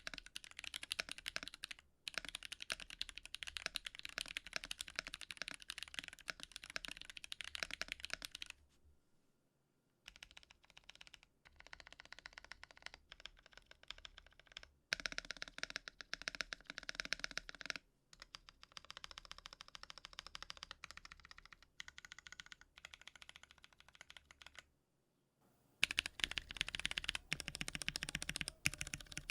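Fast typing on a mechanical keyboard with Holy Panda tactile switches: a dense run of clacky keystrokes, broken into several stretches of differing loudness with brief silences about nine seconds in and near the end.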